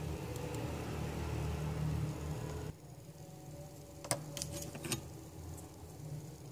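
A steady low electrical hum that cuts off abruptly about three seconds in, then a few light metallic clicks of small tools against a hard drive's circuit board and connector during soldering.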